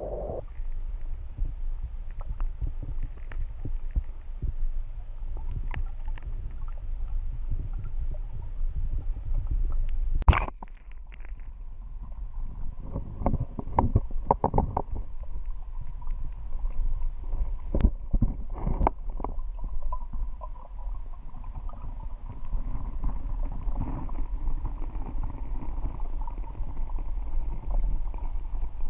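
Muffled underwater sound heard through a submerged camera: a steady low rumble of water with scattered light clicks and knocks. A loud knock comes about ten seconds in, and a cluster of knocks follows a few seconds later.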